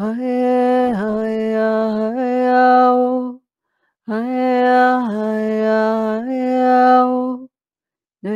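A woman's voice chanting wordless light-language syllables in long held notes. Two phrases of about three and a half seconds follow the same melody: a held note, a step down about a second in, then a step back up. Each is followed by a short silence, and a third phrase begins right at the end.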